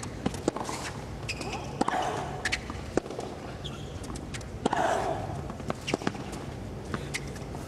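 Tennis rally on a hard court: a series of sharp racket-on-ball hits and bounces every second or so, with a short grunt from a player on a shot about two seconds in and again about five seconds in, over a steady low stadium hum.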